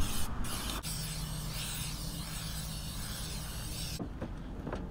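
Aerosol spray paint can spraying onto a plastic fender liner: a steady hiss with a brief break near the start, cutting off suddenly about four seconds in.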